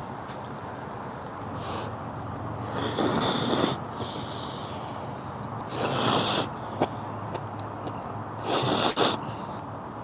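Close-up eating sounds of a person at a meal: three short, noisy, breathy bursts, about a second each, a few seconds apart.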